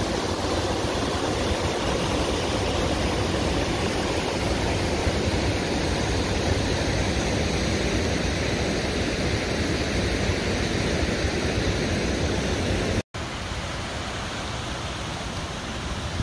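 Water rushing steadily over a dam spillway and through rocky rapids. About 13 seconds in, it cuts out for an instant, then continues a little quieter.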